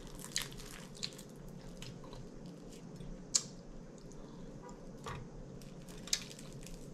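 Close-up eating sounds: wet chewing and mouth smacks on an air-fried chicken wing pulled apart by hand, with a few sharp clicks, over a faint steady hum.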